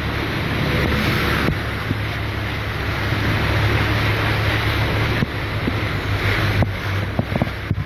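Steady rush of heavy rain and floodwater splashing as vehicles drive through a flooded road, over a steady low hum.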